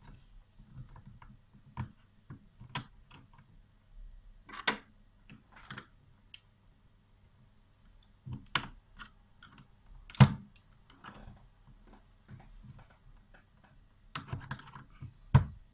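Scattered plastic clicks and knocks as a three-way power strip's housing is closed up and its repaired on/off switch is worked, clicking ('tak tak'). The sharpest knock comes about ten seconds in.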